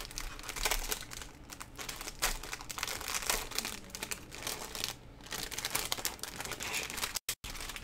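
Clear plastic packaging and small plastic bags of acrylic diamond-painting drills crinkling irregularly as they are handled and unwrapped. The sound cuts out to silence for a moment near the end.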